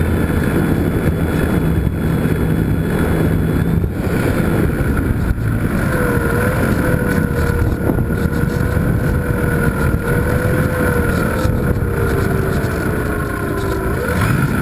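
Electric motor and propeller of a GWS Slow Stick RC airplane heard through its onboard camera: a steady whine that wavers in pitch with the throttle and sinks lower near the end as the plane comes down close to the ground. Heavy wind rush on the microphone runs under it.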